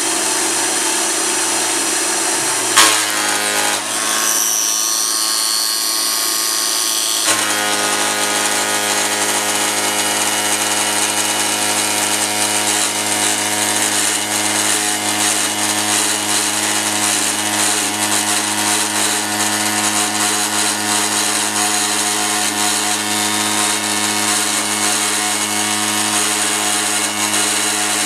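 CNC mill with a 1-inch two-flute insert cutter at 7000 RPM roughing 6061 aluminium plate: a loud, steady pitched cutting sound. A sharp bang about three seconds in, then the sound thins out until about seven seconds, when full steady cutting resumes; the spindle motor, about 2 hp, is near the limit of what it can pull.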